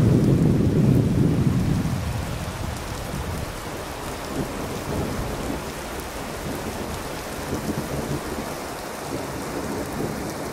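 Heavy rain pouring onto a tarmac road in a thunderstorm, with a low rumble of thunder dying away over the first two seconds, then a steady hiss of rain.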